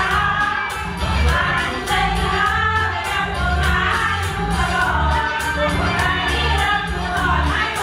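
Background music: a song with singing voices over a steady beat and bass.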